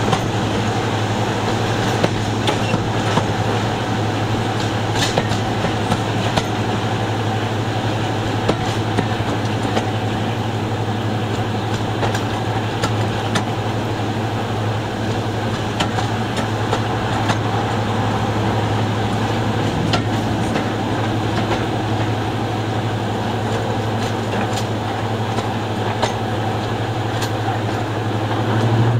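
Diesel-electric locomotive engine running with a steady deep drone, heard through the open window of the carriage right behind it as the train rolls along. Scattered clicks of the wheels over rail joints sound through it.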